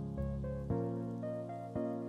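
Background music: soft sustained notes, changing about every half second to a second.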